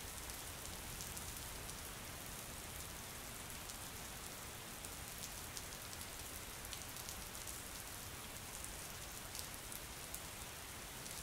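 Steady rain falling, with faint ticks of individual drops.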